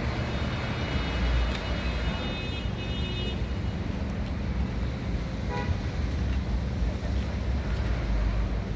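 Street traffic noise: a steady low rumble of passing cars. A thin high whine runs through the first three seconds, and a short toot-like sound comes about five and a half seconds in.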